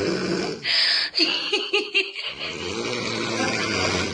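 A sleeping young woman snoring, two long snores, with a hissing breath and a short stretch of stifled giggling between them about a second in.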